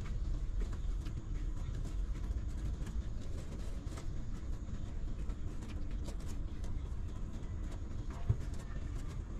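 Newborn puppies suckling at their mother's teats, with scattered soft smacking clicks over a steady low rumble, and a single thump about eight seconds in.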